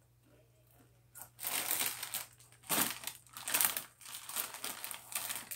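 Flaming Hot Nacho Doritos chip bag crinkling in irregular bursts as a hand handles it and rummages inside, starting about a second in.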